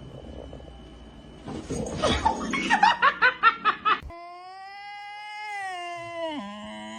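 A person laughing hard in quick, rapid bursts. About four seconds in, a long pitched wail follows, dipping and rising again near the end.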